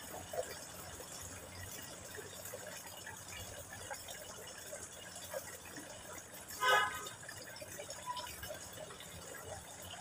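A thin stream of water from a hose pipe falling into a garden fish pond, trickling and splashing steadily. About two-thirds of the way through, a brief pitched call stands out above it.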